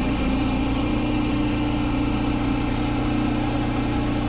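Pressure washer engine running steadily at a constant speed.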